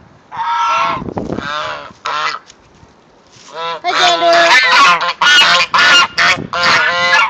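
Domestic geese honking: a few separate calls in the first couple of seconds, then a loud, rapid run of overlapping honks from about halfway through.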